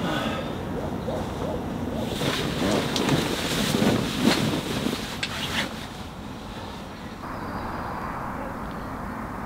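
Wind blowing on the microphone, with a few light clicks or knocks in the first half.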